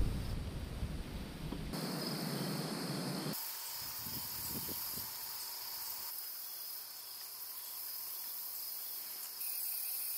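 Insects singing a steady high-pitched drone across an outdoor field, the background shifting abruptly a few times as the footage cuts. A louder, broad rush of noise fills the first two seconds.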